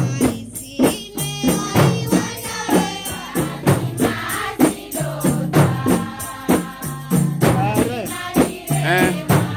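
A group of women singing together to hand-held tari frame drums, the drums struck in a steady beat at about two strokes a second.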